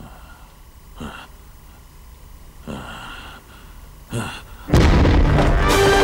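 A man breathing heavily in his sleep, three slow breaths about a second and a half apart. About three-quarters of the way through, a sudden loud boom cuts in and loud dramatic score music carries on.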